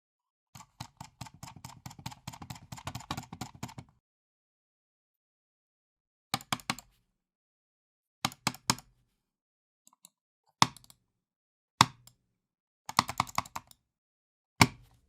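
Computer mouse clicked hard and fast in frustration: a rapid run of clicks for about three seconds, then after a pause short groups of two or three clicks and several single sharp clicks.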